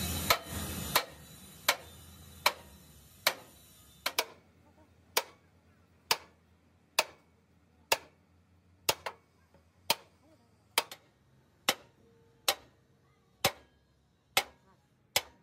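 Hand hammer striking metal in steady blows just under one a second, each with a short ring. A few blows are followed at once by a quick second tap.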